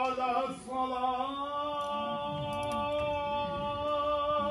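A man's voice chanting in a mosque: a few shifting melodic notes, then one long note held steadily for the rest.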